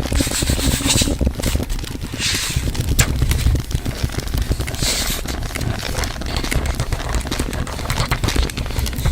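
Several ASMR trigger sounds layered on top of one another: crinkling, scraping and crackling close to the microphone, with many small clicks and short bursts of hiss about two and a half and five seconds in.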